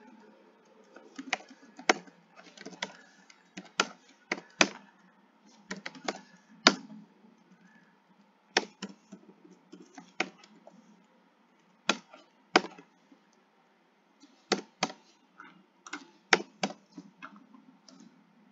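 Keystrokes on a computer keyboard, typing in irregular bursts with pauses of a second or two between them.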